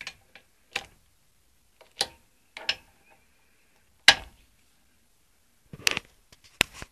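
Click-type torque wrench on cylinder head nuts, giving about seven sharp metallic clicks a second or so apart, some in close pairs, as the nuts reach the set torque.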